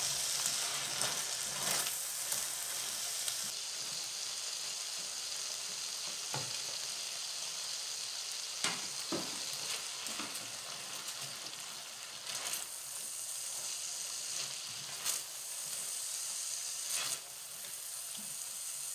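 Chicken strips and julienned carrots sizzling in oil and soy sauce in a wok, stirred with a silicone spatula. The steady sizzle eases a little about three seconds in, and the spatula scrapes and knocks against the pan now and then.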